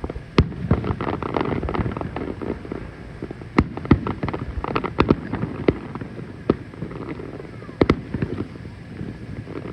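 Aerial fireworks going off in a rapid, irregular run of bangs and crackling, with a few louder booms scattered through it, including a close pair near the end.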